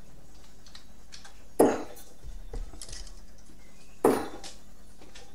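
Two sharp thuds about two and a half seconds apart, each dying away quickly: darts striking a bristle dartboard.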